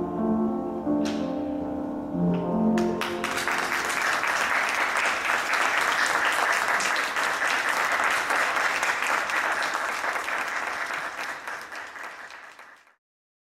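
A male singer's held final note with grand piano, ending about three seconds in, followed by an audience applauding. The applause fades out near the end.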